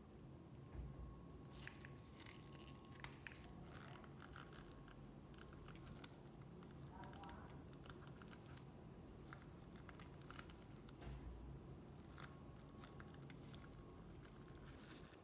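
Faint, scattered small clicks and scrapes of hand tools working on a phone's casing and parts, over a low steady hum.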